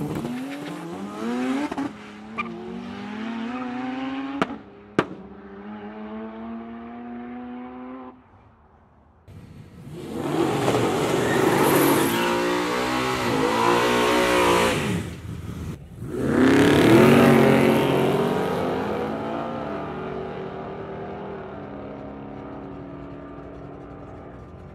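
Race car engines revving hard and accelerating. One rises in pitch and fades over the first eight seconds, with two sharp cracks about five seconds in. A louder run starts about ten seconds in, breaks off briefly, then returns and fades away slowly near the end.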